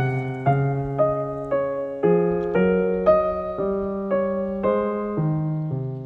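Background piano music: a slow, gentle melody of single notes struck about every half second, each one ringing and fading.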